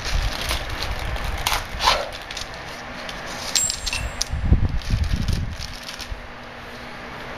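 Hand work on a front suspension: scattered clicks and clinks of tools and parts being handled, with a burst of low thumps and knocks about four and a half seconds in, then a quieter steady background.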